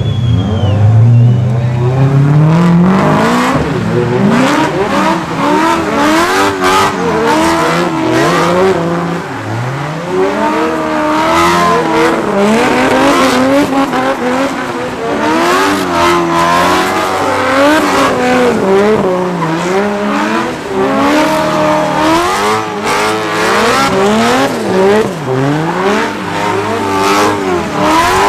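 BMW with a swapped-in E92 M3 S65 V8 engine being drifted on a wet surface. The revs climb steadily over the first couple of seconds, then rise and fall again and again as the throttle is worked, with tyres squealing at times.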